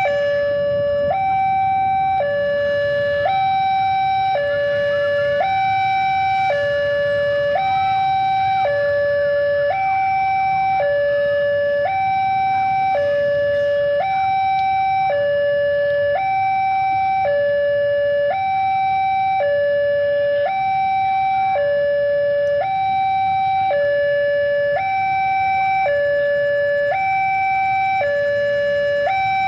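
Electronic two-tone warning alarm alternating steadily between a high and a low tone about once a second, typical of a railway level-crossing signal sounding as a train approaches, with a faint low rumble underneath.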